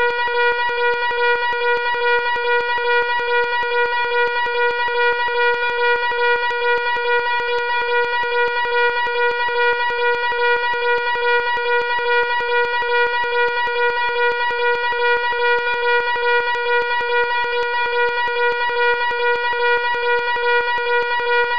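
Fire alarm sounding continuously: a loud, harsh buzzing tone, steady in pitch, with a fast regular pulse.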